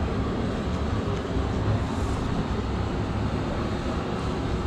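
A steady low rumble with a hiss of background noise over it.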